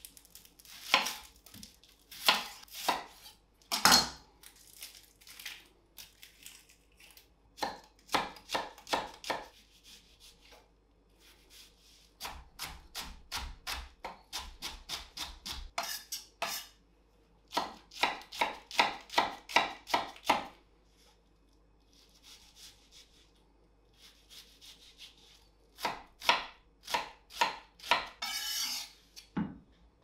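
Chef's knife chopping an onion on an end-grain wooden cutting board: bursts of quick, sharp knocks of the blade on wood, several a second, with pauses between the bursts. A brief scraping sound comes near the end.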